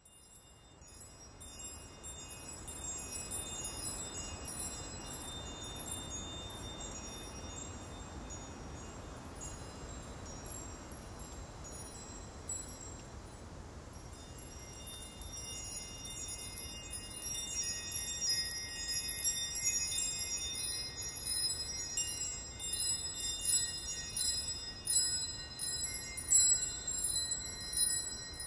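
Chimes tinkling in many high ringing notes over a soft low hum, fading in at the start and growing busier and louder about halfway through.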